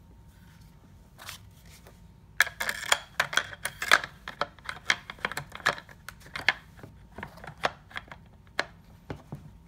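Sharp metal clicks and clacks of a PTR-91 rifle's parts being handled and fitted together during reassembly. A quick run of clicks starts about two and a half seconds in, followed by scattered single clicks.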